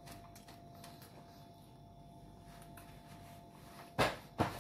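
Quiet kitchen room tone with a faint steady hum and a few soft clicks, then two loud breathy puffs about four seconds in: a man blowing out air through pursed lips.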